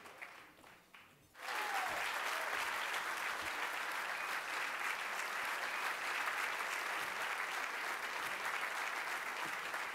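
Audience applauding: after a brief lull, the clapping comes back full about a second and a half in and stays dense and steady.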